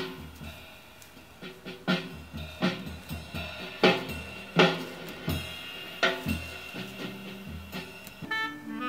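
Background jazz music: a drum kit keeping time over a bass line, with a sustained chord entering near the end.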